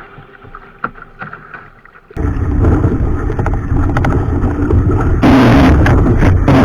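Wind buffeting the microphone aboard a sailing yacht, with rushing water, cutting in suddenly about two seconds in after faint music; a louder hiss joins about five seconds in.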